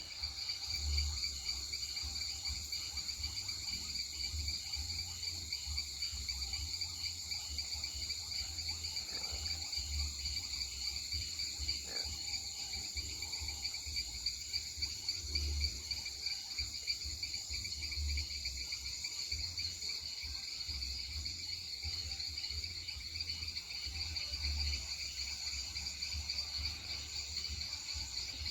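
Night chorus of Amazon rainforest insects: a dense, steady high trilling with a fine pulsing texture, with a low, wavering rumble underneath.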